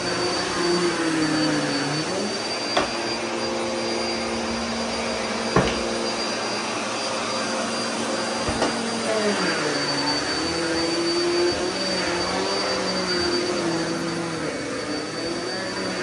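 Upright commercial vacuum cleaner running on carpet, a steady motor hum that shifts in pitch, holding higher and steadier through the middle before wavering again. Three sharp knocks are heard a few seconds apart.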